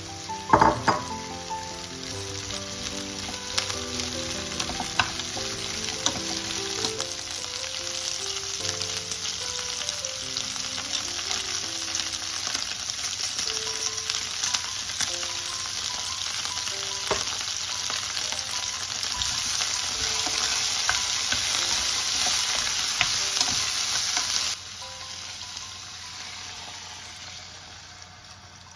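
Asparagus and onion sizzling as they sauté in an open frying pan, with a single loud knock about a second in. The sizzle cuts off abruptly near the end, leaving only faint background music.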